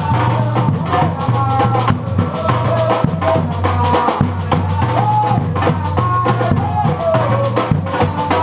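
Brazilian batucada percussion ensemble playing a steady, dense rhythm: deep bass drums under a thick layer of snare and hand-drum strokes, with gliding pitched tones riding above.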